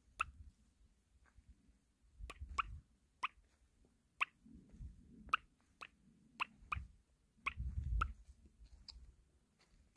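Footsteps on a dirt track with soft low thuds, and a string of sharp, short high clicks at irregular intervals, roughly one a second, louder than the steps.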